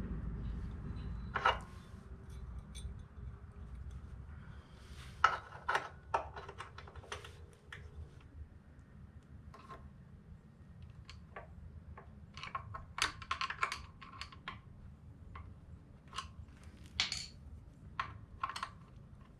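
Irregular metallic clicks and clinks as a motorcycle footpeg, its return spring and pivot pin are worked into the mounting bracket by hand. Some of the clicks ring briefly.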